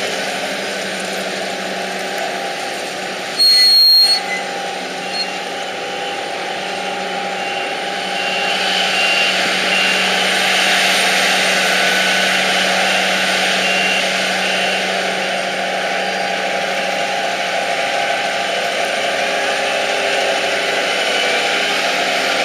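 Diesel engines of silage harvesting machinery, tractors and forage equipment, running steadily. About three and a half seconds in there is a brief, much louder burst with a high tone, and from about eight seconds in the machinery gets louder, with more hiss and whine.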